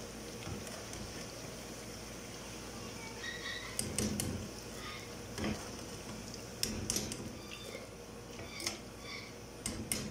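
Eggplant slices frying in oil in a pan with a steady sizzle, and a slotted spatula knocking and scraping against the pan several times as slices are lifted out.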